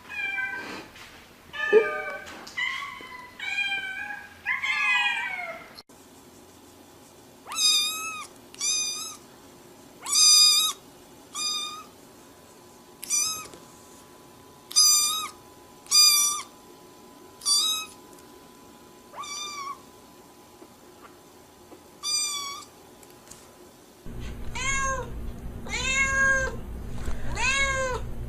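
Domestic cats meowing repeatedly. A run of short, high meows comes about one every second or so, then lower, drawn-out meows follow over a steady hum near the end.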